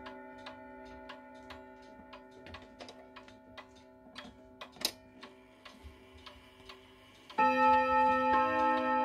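Pendulum wall clock ticking, with a lingering ring from its chime rods and a sharp click about five seconds in. About seven seconds in, the hammers strike the rods and the hour chime melody begins, set off by the minute hand reaching 12.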